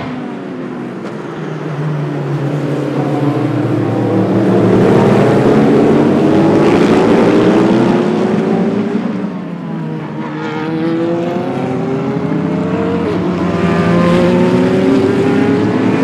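Race car engines accelerating past on a track, their engine notes climbing in pitch as one car and then a group of cars go by. The sound swells, dips about ten seconds in, then rises again as more cars follow.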